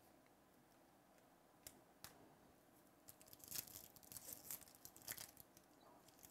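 A sealed trading-card pack's foil wrapper being torn open by hand, crinkling in a run of short crackles for about two seconds, starting about three seconds in, after a couple of faint clicks.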